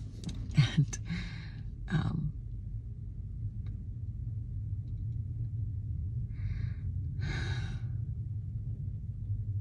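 A woman breathing audibly in a pause in her speech: a short breath about six seconds in, then a longer, louder sigh just after, over a steady low hum in the car cabin.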